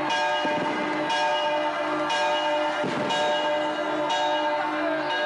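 A large bell tolling about once a second, each stroke ringing on into the next.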